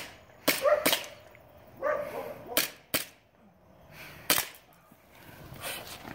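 Gas blowback airsoft pistol firing about five sharp shots, two quick pairs and then a single one.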